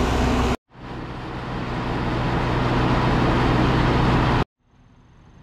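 Alishan Forest Railway train running with a steady rumble. It cuts off abruptly twice, each time swelling back up as a new clip begins.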